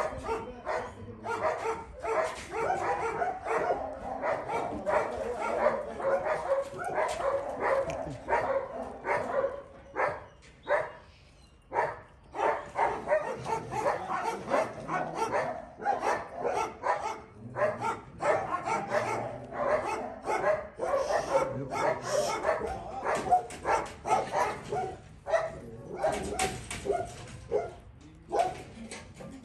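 Several dogs barking over one another in a steady, rapid stream, easing briefly about ten seconds in and again near the end.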